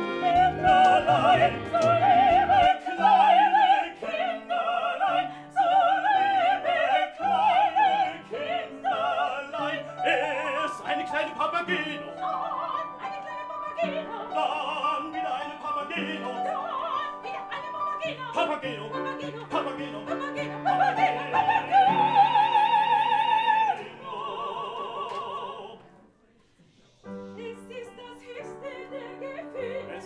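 Opera singing in a high voice with a wide vibrato, over piano accompaniment. About 26 seconds in it breaks off briefly, then the music carries on more softly.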